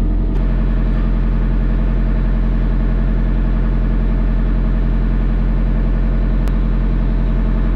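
Kubota LX3310 compact tractor's three-cylinder diesel engine idling steadily, heard from the cab with the door open, with a single faint click near the end.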